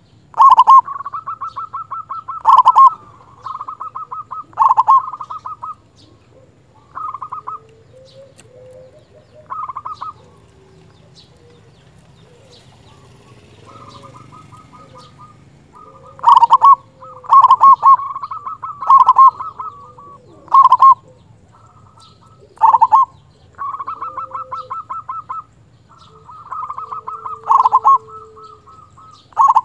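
Zebra dove (perkutut) singing its staccato cooing song. Each bout is a quick run of beats with a few louder strong notes, repeated many times. The calls grow sparse in the middle and pick up again after that. A fainter, lower call from another bird sounds now and then.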